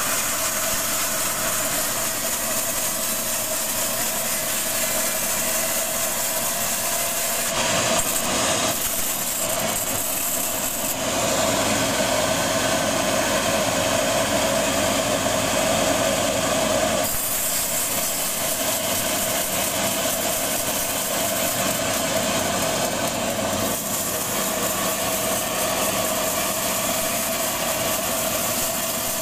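Band sawmill running steadily, its motor and blade going as the saw cuts through rambutan wood; the cutting noise grows louder for several seconds in the middle.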